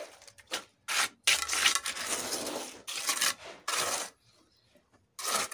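Steel mason's trowel scraping and pushing wet cement mortar: a few short strokes, one longer drawn-out stroke about a second in, then two more before it stops about a second from the end.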